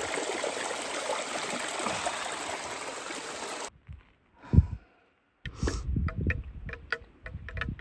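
Running water, a steady rushing that stops abruptly about three and a half seconds in. A single knock and then a run of quick clicks and rattles follow.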